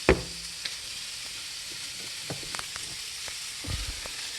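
Burger patties frying in a non-stick skillet: a steady sizzle with scattered small pops. A sharp knock sounds right at the start.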